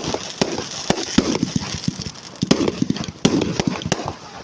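Fireworks going off: a rapid, irregular string of sharp bangs and cracks over a continuous crackling hiss.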